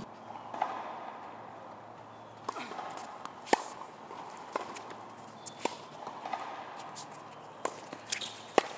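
Tennis ball being struck by rackets and bouncing on a hard court during a doubles rally: a series of sharp pops roughly a second apart, the loudest about three and a half seconds in and again near the end.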